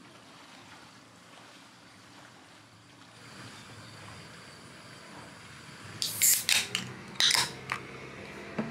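Two aluminium drink cans, an Orion The Draft beer and a second Orion can, snapped open by their pull tabs one after the other. Each gives sharp cracks with a short fizzing hiss, the first about six seconds in and the second just after seven seconds, following a faint steady background.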